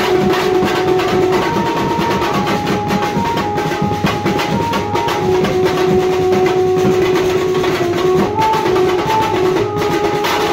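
Banjo-party band music: a melody line of held notes played over fast, steady drumming.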